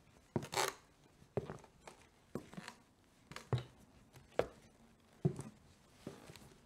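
Footsteps on the wooden floorboards and stairs of an old house: slow, even steps about one a second, each a knock of the shoe on the wood, some followed by a brief scuff.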